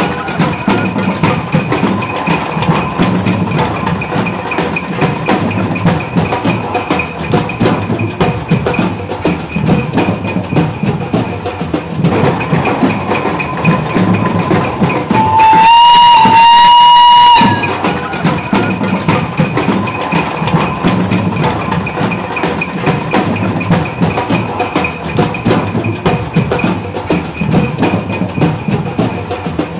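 Steam traction engine whistle blowing one loud blast of about two seconds around the middle, its pitch stepping up slightly as it opens. Beneath it runs a continuous clattering din.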